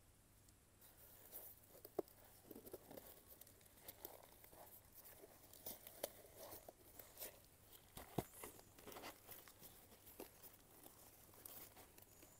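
Faint tearing and crinkling of a parcel's packaging being opened by hand, with scattered small clicks and two sharper knocks, about two seconds in and again about eight seconds in.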